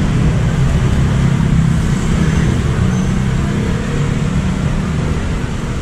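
Street traffic: a steady low engine hum from motor vehicles running close by, over road noise.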